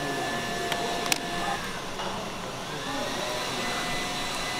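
Steady machine whir with a faint whine in it, and two light clicks about a second in.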